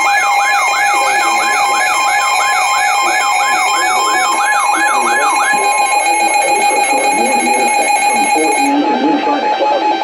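Several weather alert radios sounding their alarms together for a Coastal Flood Warning: a siren-like tone sweeping up and down about three times a second over a steady tone and high beeping tones. The sweeping stops about halfway through and the high tones cut off a few seconds later, leaving the steady tone.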